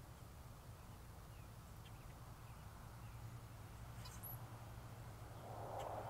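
Quiet outdoor ambience: a few faint, brief bird chirps over a steady low hum.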